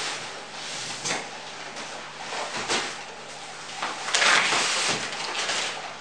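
A large cardboard box being handled and set down against a wooden shelf: cardboard rustling and scraping with a few knocks. The loudest, longest scrape comes about four seconds in.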